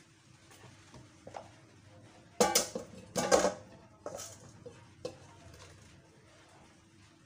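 Blender jar clattering and knocking against a stainless steel cooking pot as ground spice paste is tapped out of it. Two loud clattering runs come about two and a half and three and a half seconds in, followed by a couple of lighter knocks.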